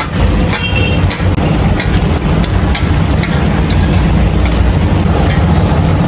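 Egg frying in oil in a large flat steel pan, sizzling, with a long metal spatula clicking and scraping against the pan several times. Under it runs a loud, steady low rumble.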